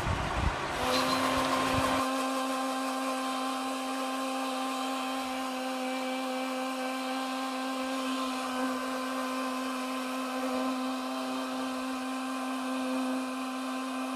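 Electric mixer grinder (mixie) beating raw eggs in its jar. After a few low knocks it switches on about a second in and runs at a steady, unchanging pitch as the eggs are whipped to a froth.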